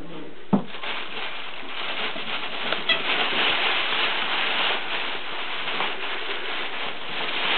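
Rustling and scrabbling of a puppy moving inside a fabric play tunnel, with a sharp knock about half a second in.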